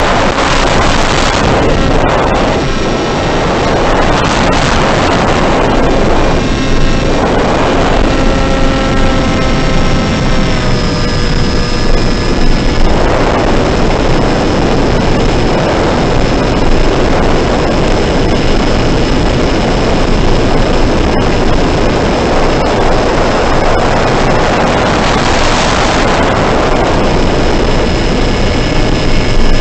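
A model airplane's motor and propeller run at flight speed, heard from a camera on board, over a heavy rush of wind. The motor's pitch shifts a few times, and the wind noise swells every few seconds.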